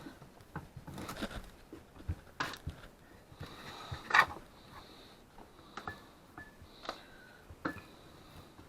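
Rolling pin working dough on a countertop: scattered light knocks and short swishing strokes with pauses between them.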